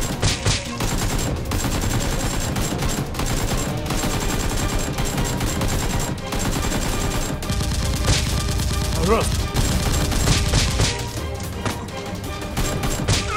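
Rapid, near-continuous machine-gun-style gunfire over background music.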